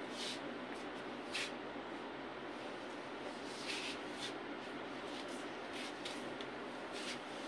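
Cotton saree cloth rustling in several short swishes as it is handled and draped, over a steady background hiss.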